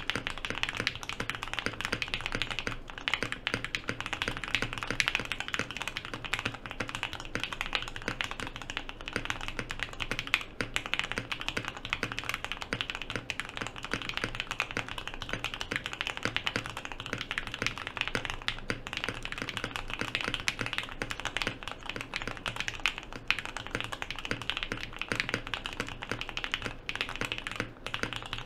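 Continuous typing on a custom Portal mechanical keyboard fitted with lubed Alpaca linear switches (Krytox 205g0, TX62g 16 mm springs), a full FR4 plate in an O-ring mount and Geekark BoW keycaps: a steady stream of keystrokes, several a second, without a pause.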